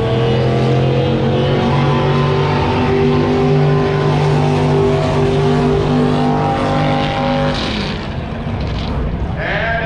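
Drag boat's racing engine running loud and steady, its pitch edging up in the first second or two, then falling away about three-quarters of the way through.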